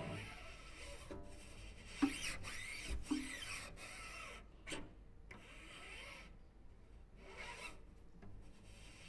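Cello played with extended techniques rather than normal bowing: the bow rubbed and scraped against the strings and body of the instrument, making quiet rasping, grainy scrapes with sliding glides. There are sharper accented strokes about two and three seconds in.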